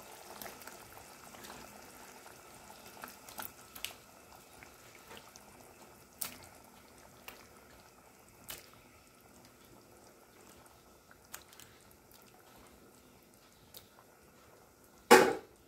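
Prawn kurma gravy simmering faintly in a pan, with scattered small plops and pops as raw prawns are slid into it from a plate. A single sharp knock sounds near the end.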